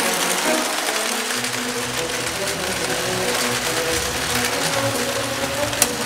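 Prewar Lionel O-gauge train running on tinplate three-rail track, its electric motor and wheels giving a steady mechanical whirr and rumble that grows heavier about a second and a half in as the cars come past. A single sharp click near the end.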